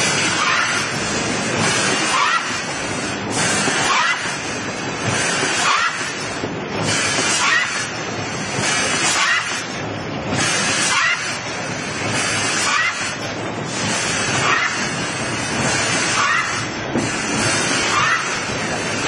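ST040PP automatic case lining machine running through its production cycle: a steady mechanical rush that swells about every two seconds, with short gliding squeaks in each cycle.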